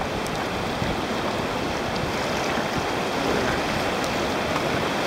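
Steady rush of river water running through a rocky whitewater rapid.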